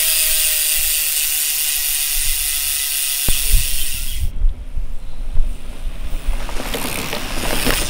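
A steady hiss with faint held tones that cuts off about four seconds in, then low rumbling and rustling as a mountain bike rolls past over grass.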